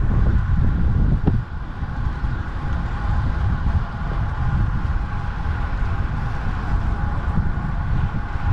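Wind buffeting the microphone of a bike-mounted Garmin VIRB action camera at about 42 km/h, a loud, fluttering low rumble over a steady hiss of rolling noise. One short click about a second in.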